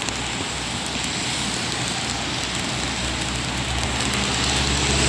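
Heavy rain pouring down in a strong, gusty wind, the wind buffeting the microphone with a low rumble; it grows a little louder toward the end.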